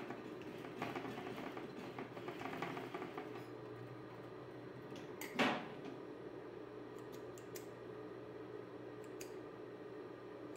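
Sewing machine stitching for the first few seconds and then stopping, with a low motor hum that carries on throughout. About halfway there is a short rustle of fabric, then several small sharp clicks of thread snips cutting the threads.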